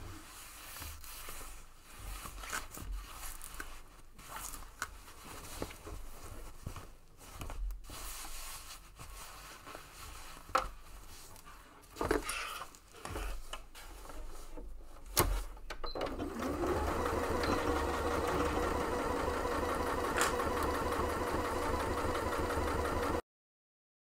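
Fabric panels being handled and arranged with a few sharp clicks, then about two-thirds of the way in a domestic electric sewing machine starts and runs steadily, stitching a seam through layered bag panels, before cutting off suddenly near the end.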